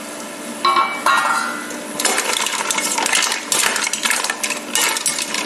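A stainless steel pot lid rings twice as it is set down about a second in. Then fresh mussels are stirred in a stainless steel stockpot with a big spoon, their shells clattering against the pot and the spoon.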